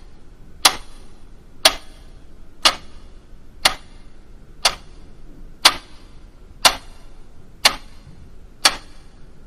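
Clock ticking, one sharp tick each second, over a faint steady hiss.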